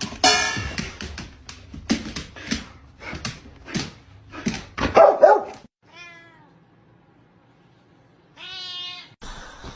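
Cat meowing: one call falling in pitch about six seconds in and another near the end. The first half holds a run of sharp knocks and clatter.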